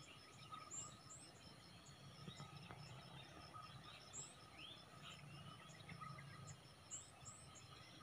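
Near silence with faint distant small-bird chirps and insect calls: short high chirps repeat throughout, with a brief rising whistle about four and a half seconds in.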